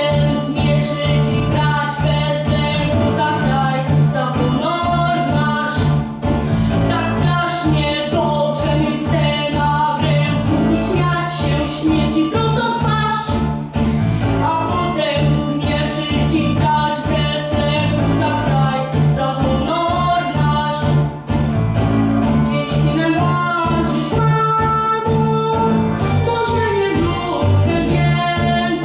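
A boy singing a Polish song solo over an instrumental backing track with a steady beat.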